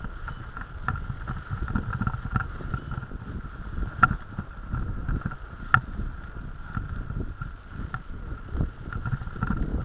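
Mountain bikes rolling fast down a dirt forest trail: a steady rough rumble and rattle from tyres and frames over the ground, with wind on the microphone. Two sharp knocks stand out, about four seconds in and just under six seconds in.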